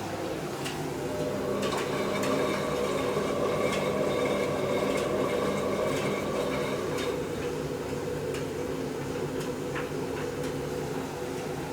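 Domestic laundry machines running: a steady motor hum with the drum turning and occasional light clicks. A higher tone joins the hum from about a second and a half in and drops away after about seven seconds.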